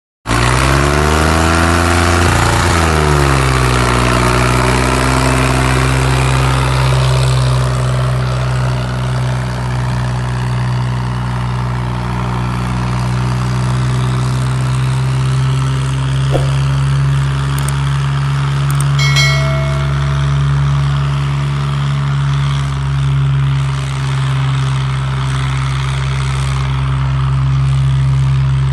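Diesel tractor engine revving up and down, then running hard at steady high revs while pulling a disc harrow under heavy load. A brief higher-pitched note sounds about two-thirds of the way through.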